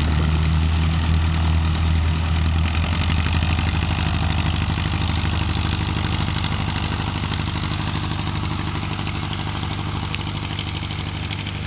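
Aircraft engine idling on the ground, steady and slowly getting quieter.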